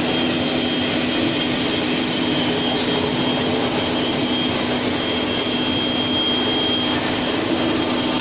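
Screw oil expeller running while pressing sunflower seeds: a steady mechanical drone with a constant low hum and a faint high whine.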